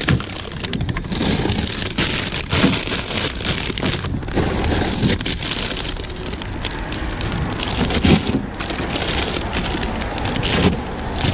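Plastic bags of frozen pilchards crinkling and crackling as they are handled, with a few knocks of the frozen packets.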